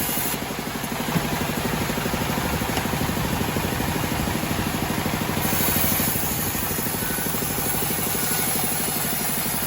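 Homemade bandsaw sawmill running steadily under its engine. A high hiss drops away about half a second in and returns a little past the middle.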